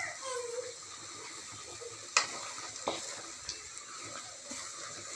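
Diced raw plantain and ivy gourd sizzling in a pan as the last of the water cooks off, stirred with a wooden spatula. The spatula knocks sharply against the pan twice, a little after two seconds and near three seconds in.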